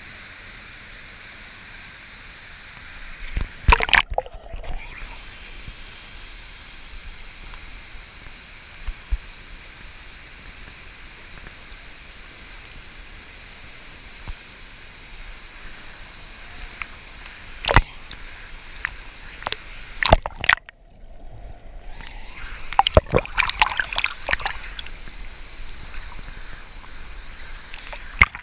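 Waterfall and river water rushing steadily. A few sharp knocks and short sloshing splashes break in, and the rush drops out briefly twice.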